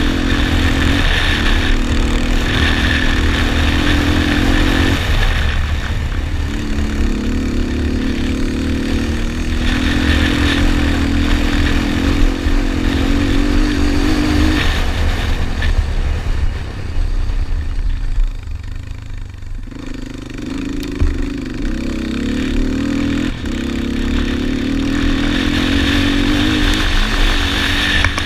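Yamaha Raptor 250 quad's single-cylinder four-stroke engine at racing revs, its pitch dropping back in steps at each gear change. The throttle is backed off for a few quieter seconds a little past halfway before it pulls hard again, with wind rumbling on the microphone throughout.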